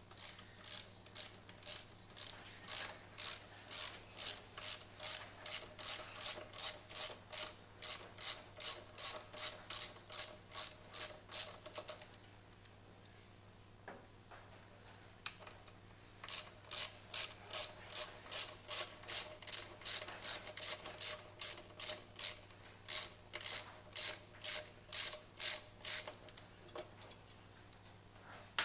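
Hand ratchet wrench being swung back and forth to run a bolt, its pawl clicking steadily about three times a second. The clicking runs for about twelve seconds, pauses for about four, then runs again for about ten.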